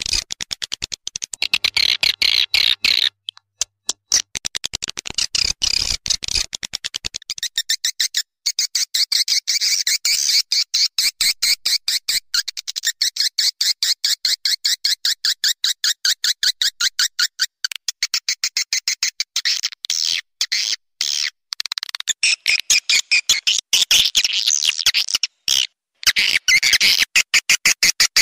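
Swiftlet lure call recording: edible-nest swiftlets twittering in a fast, dense, clicking chatter, with a couple of short breaks. It is the call sound played in swiftlet houses to draw the birds in to roost and nest.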